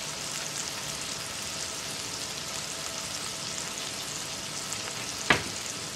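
Beef burger patties frying in a cast iron skillet, a steady sizzle and crackle. A single sharp click about five seconds in.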